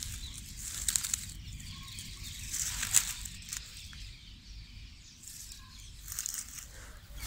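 Dry leaf litter and twigs rustling and crackling as they are handled, with scattered small snaps over a low rumble.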